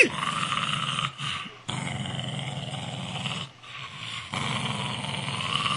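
A corgi growling in three long, rough stretches with short breaks between them.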